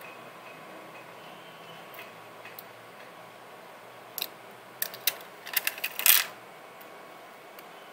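Quick run of small sharp clicks and taps, bunched over about two seconds starting some four seconds in, from hands handling small parts and tools on a work mat. A faint steady hiss runs underneath.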